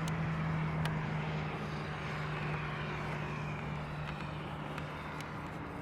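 A distant engine passing by: a steady low hum with a wash of noise that slowly fades, and a few faint clicks.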